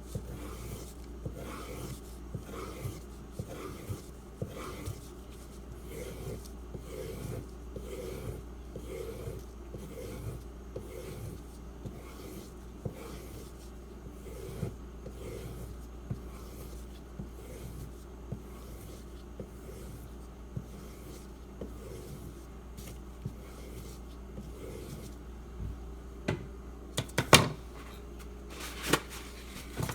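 A Spyderco Salt knife being stropped on a leather strop loaded with white compound: a steady rhythm of light, even strokes of the blade over the leather. Near the end there are a few sharp knocks.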